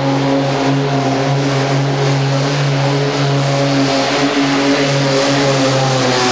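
Modified farm pulling tractor's engine held at full throttle under load as it drags a weight-transfer pulling sled; a steady, loud drone with only slight dips in pitch.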